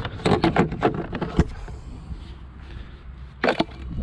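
Plastic engine cover being worked loose and pulled off: a quick run of knocks and rattles, a sharp snap about a second and a half in, and two more knocks near the end.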